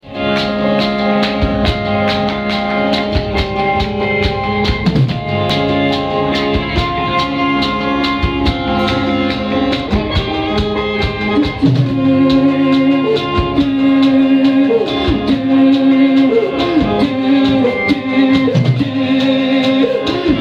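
Live band playing with a drum kit keeping a steady beat. Guitar and keyboard hold notes underneath, and a lead line with sliding, bending pitch runs over the top.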